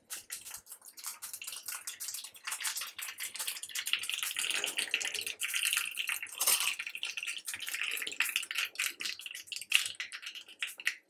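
Mustard seeds and whole dried red chillies frying in hot oil for a tempering: a steady sizzle with dense crackling as the seeds pop, a few louder pops among them.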